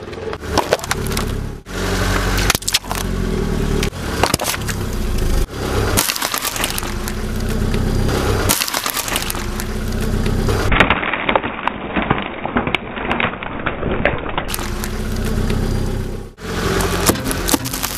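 A car tyre rolling over and crushing objects: dense crunching and cracking over the car's running engine. It breaks off and starts afresh several times.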